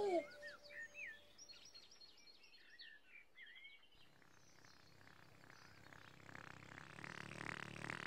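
Faint birdsong, short chirps and whistles over the first few seconds. Then from about six seconds a low, evenly pulsing musical sound effect grows louder as the voice trumpet rises from the ground.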